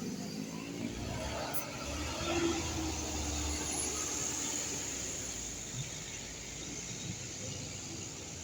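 Heavy vehicle driving past, with engine rumble and road noise. The rumble is strongest in the first few seconds and slowly fades, with a brief whine in the middle.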